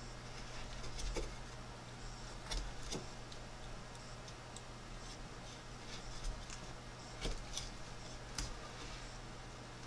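Carving knife cutting into a wooden spoon blank: a few short, sharp clicks, irregularly spaced, as the blade is pressed in and small chips break away. A low steady hum runs underneath.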